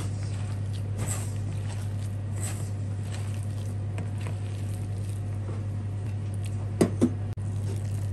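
A hand squishing and kneading wet gram-flour pakora batter with chopped onion in a stainless steel bowl: soft, repeated squelching. There are two sharp knocks close together about seven seconds in, over a steady low hum.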